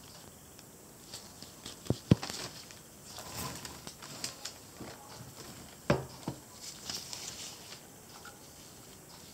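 Handling noises on a tabletop as paint bottles and a figurine are picked up and set down: two sharp knocks close together about two seconds in, another about six seconds in, with small clicks and rustling between.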